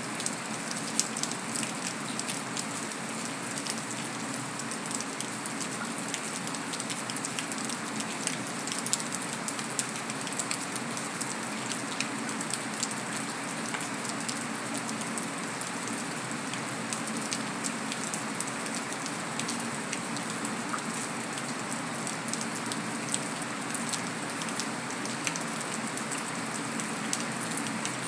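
Heavy rain falling steadily on concrete: a constant hiss with many individual drop splats.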